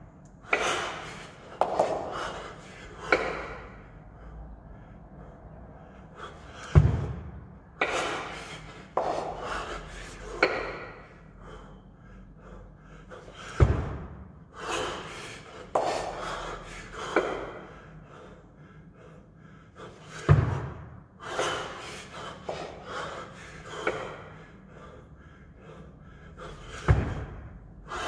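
Two 24 kg kettlebells worked through a long cycle, with a dull thump about every seven seconds as each rep goes by, and sharp, hard breaths several times between thumps.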